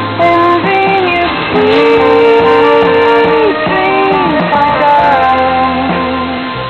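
Guitar-led music from a shortwave pirate radio broadcast, received in upper sideband on 6930 kHz. Everything above about 4 kHz is cut off.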